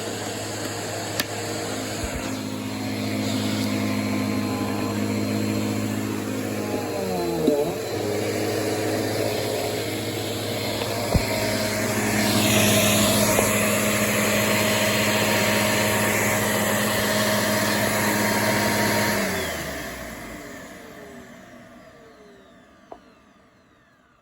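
Bissell PowerForce Helix Turbo bagless upright vacuum running while vacuuming, its motor pitch dipping briefly about seven seconds in. It is switched off about nineteen seconds in, and the motor winds down over several seconds.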